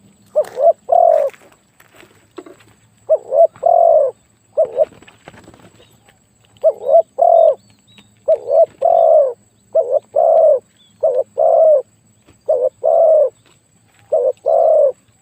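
Spotted dove cooing loudly in a deep, big voice: repeated phrases of one or two short coos followed by a longer drawn coo, about every one and a half to two seconds.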